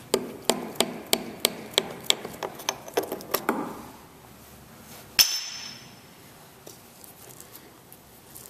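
Hammer blows on the cut steel frame to knock off its last piece: sharp regular strikes, about three a second, for three and a half seconds. A little after five seconds comes one louder metallic strike that rings briefly.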